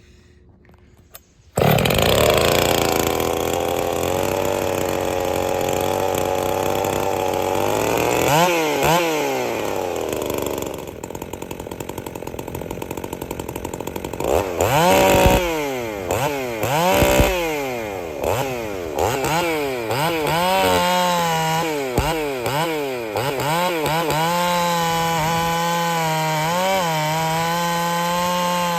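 Ported Husqvarna 61 two-stroke chainsaw running, coming in suddenly about a second and a half in and held at high revs. From about halfway it is revved up and down repeatedly, then held steady near the end.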